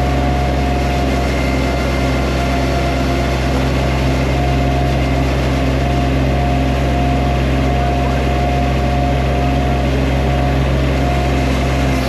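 An engine running steadily at a constant speed, with no change in pitch or load.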